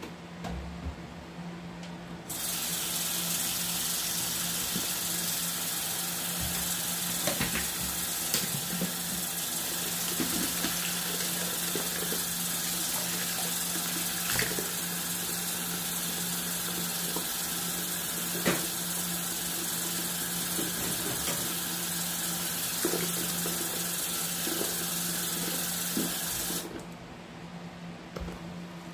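Kitchen faucet running water into a sink in a steady hiss, turned on about two seconds in and shut off near the end. A few light clicks sound over it, and a low steady hum runs underneath.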